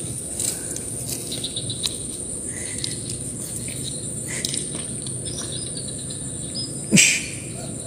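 Insects trilling steadily at a high pitch, with scattered faint clicks and one short loud noise near the end.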